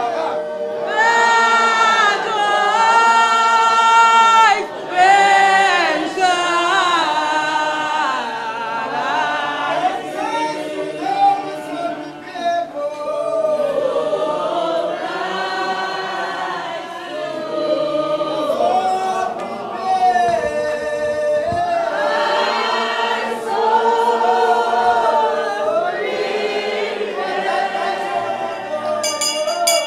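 A church congregation singing a hymn together, unaccompanied. Near the end, a bell starts ringing over the singing.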